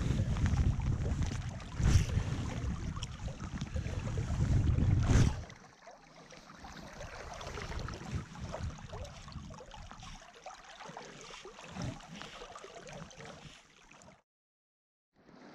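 Wind buffeting the microphone with a loud, gusting low rumble for about five seconds, then a quieter steady rush of wind and flowing river water after an abrupt change. The sound drops to dead silence for about a second near the end.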